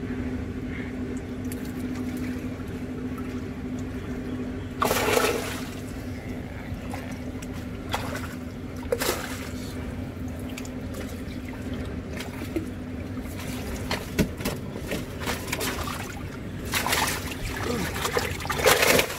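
Water splashing in several short surges, the longest near the end from caught fish thrashing in a shallow tarp-lined holding tank, over a steady low hum that fades out about two-thirds of the way through.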